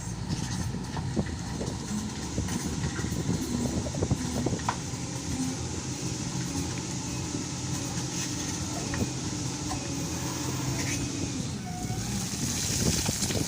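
Diesel engine of an SDLG wheel loader running steadily, with scattered short clanks and a hiss near the end.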